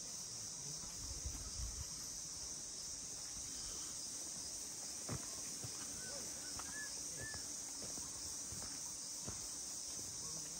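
Steady high-pitched drone of insects in the surrounding vegetation, with a few scattered soft clicks and three short chirps about six to seven seconds in.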